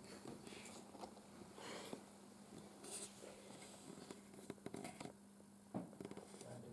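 Near silence in a quiet room: a steady low hum, with faint rustles and a few small clicks scattered through it.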